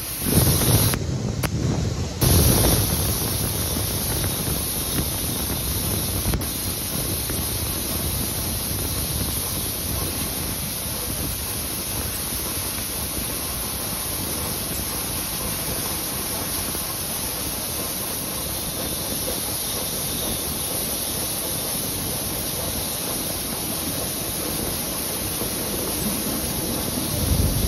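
Steam train running through a tunnel, heard from an open carriage window: a dense rumble of wheels and steam with a steady high hiss. It is loudest in the first two seconds or so, then settles to an even level.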